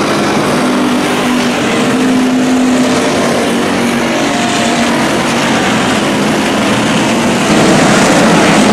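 Stock cars racing on an oval track: loud, steady engine noise from several cars at racing speed, growing a little louder near the end.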